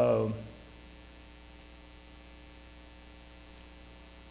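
Steady low electrical mains hum, with a few unchanging tones and no other sound after a word ends about half a second in.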